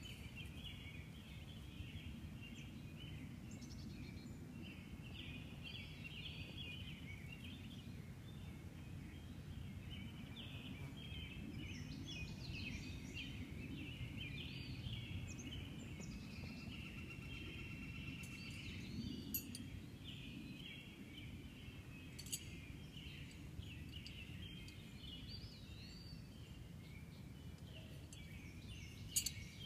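Outdoor ambience of many birds chirping continuously over a low steady rumble, with a few sharp clicks in the second half.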